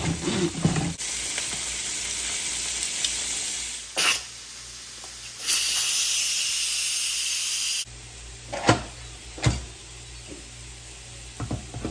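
Food sizzling in a hot pan: stretches of steady hiss that start and stop abruptly, with a few sharp knocks in the second half.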